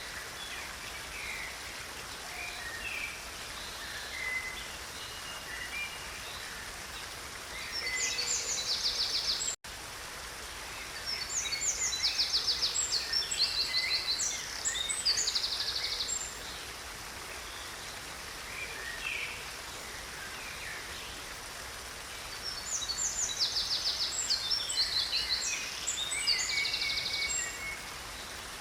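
A creek's water running steadily, with songbirds singing over it: high, rapid trilled phrases come in three bouts, the loudest between about eleven and sixteen seconds in. The sound drops out for an instant just before ten seconds in.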